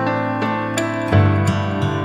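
Instrumental background music: sustained chords, with new notes coming in a few times.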